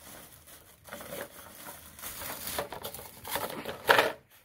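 Thin plastic packaging bag crinkling and rustling as it is handled and pulled off the parts inside, with a louder crinkle about four seconds in.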